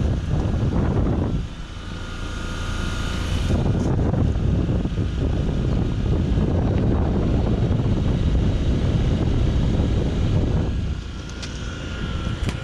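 2010 Trane XL15i 2-ton heat pump outdoor unit running steadily in cooling mode, its condenser fan and reciprocating compressor making a steady machine drone with a faint steady whine on top. Wind buffets the microphone, adding a rumble that swells and dips.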